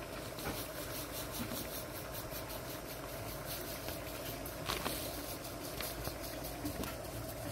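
Dry instant potato flakes poured from a paper bag into a plastic measuring cup: a soft, grainy rustle with a few light clicks, over a steady low hum.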